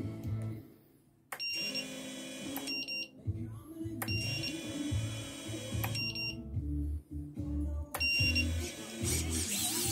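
FPV quadcopter's lost-model buzzer, switched on from the radio, sounding in repeated high-pitched beeps that start and stop in short bursts, over background music. Near the end the quad's motors arm and spin with a wavering high whine.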